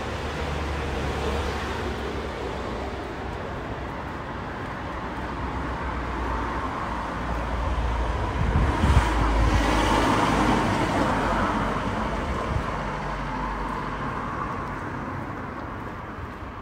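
Street traffic noise, with a vehicle passing close by that builds to its loudest about nine seconds in and then slowly fades.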